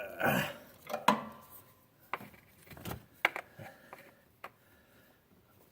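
Irregular clicks and knocks of hard plastic and metal as a cracked fuel filter cap on a 7.3 diesel is worked loose by hand.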